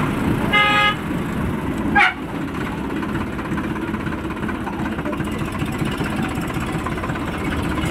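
Sonalika tractor's diesel engine running steadily while driving. A short horn beep sounds about half a second in, and a brief sharp sound follows about two seconds in.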